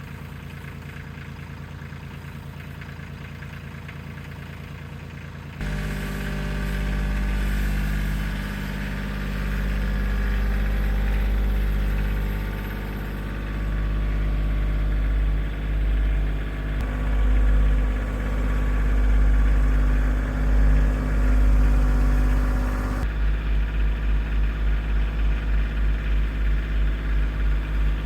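Engine idling steadily. About five seconds in it steps up to a louder, deeper run that rises and falls as it works. Near the end it settles into an even pulsing of about two beats a second.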